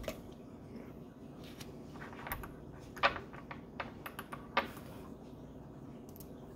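Scattered light clicks and taps of small lab containers being handled on a benchtop, a dropper bottle and microtube, as a reagent is added, over faint room hum. The clearest clicks come about three seconds in and again about four and a half seconds in.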